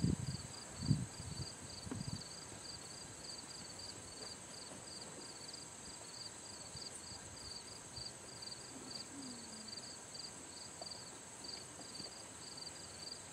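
Insects chirping in a steady, even pulse over a continuous high buzz. A couple of soft low thumps come in the first two seconds.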